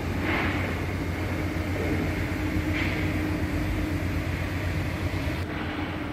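Steady mechanical rumble with a constant low hum, like machinery or a large motor running; the hiss over it thins slightly about five and a half seconds in.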